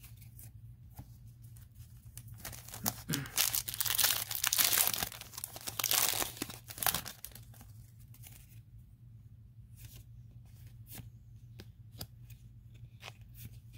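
Foil Yu-Gi-Oh booster pack being torn open and crinkled by hand, a loud crackly tearing noise for a few seconds. Later come faint scattered clicks as the cards are slid and flipped between the fingers.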